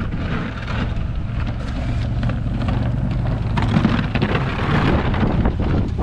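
Polaris RZR side-by-side's engine running steadily under a rushing noise of wind on the microphone.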